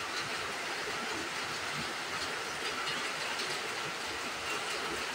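Steady hiss of heavy rain falling.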